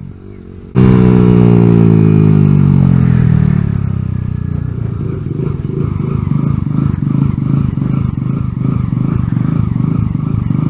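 Kawasaki Z125's single-cylinder engine on the move, coming in suddenly loud a little under a second in and falling in pitch over the next few seconds as the revs drop off the throttle. It then runs on at a lower, steadier pitch with an even pulsing.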